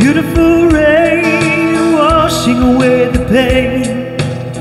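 A man singing long held, wavering notes over guitar in a slow song; the voice drops out near the end.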